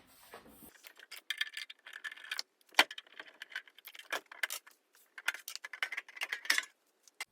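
Small metallic clicks, clinks and scrapes as the case bolts of an audio-video receiver are taken out and the sheet-metal cover is handled, with one sharp click a little under three seconds in.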